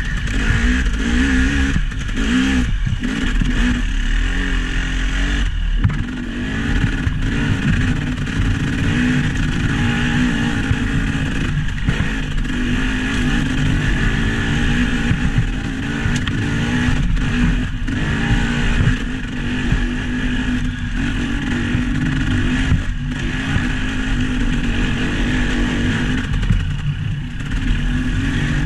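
A motor vehicle's engine running continuously at a fairly steady speed, with brief drops in sound every few seconds.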